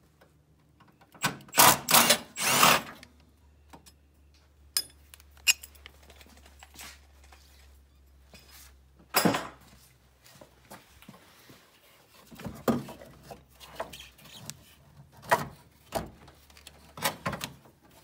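Milwaukee Fuel cordless ratchet running in several short bursts about a second and a half in. After that come scattered metal knocks and clunks, the loudest about nine seconds in, as the alternator is worked loose from the engine bay.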